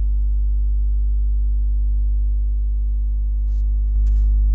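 Steady electrical hum with a stack of overtones, stepping up in loudness a little before the end, with a couple of faint, brief noises near the end.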